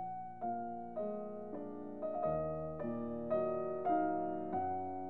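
Background piano music: a gentle melody of single notes struck about twice a second.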